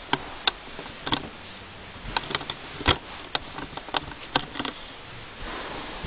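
A string of irregular light clicks and taps, a dozen or more over a few seconds, the sharpest about three seconds in.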